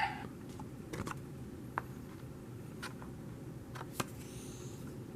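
Steady low room hum with a few light, sharp clicks scattered about a second apart.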